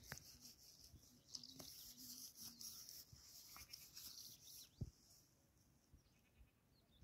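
Near silence: faint outdoor ambience with a few soft knocks, the clearest a little before five seconds in.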